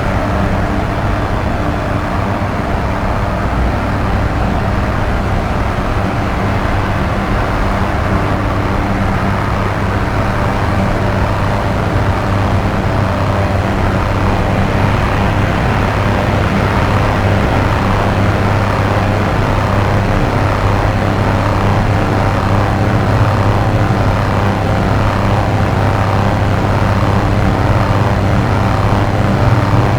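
Dark ambient electronic drone: a steady low hum under a dense, noisy, rumbling texture. From about halfway, short sweeps repeat about once a second in the middle range.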